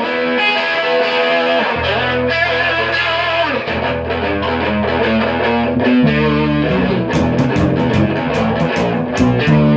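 Rock music led by a distorted electric guitar playing sustained chords. A low bass line comes in about two seconds in, and sharp percussion hits join about seven seconds in.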